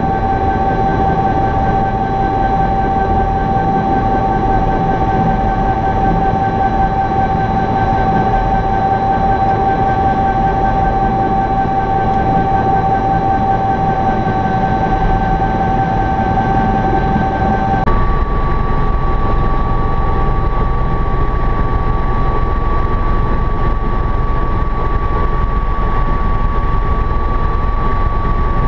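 Helicopter running, heard from inside the cockpit: a steady loud rumble of rotor and engine with a high whine. About eighteen seconds in the whine shifts to a different, higher pitch and the low rumble grows, as the helicopter goes from moving low along the runway to climbing away.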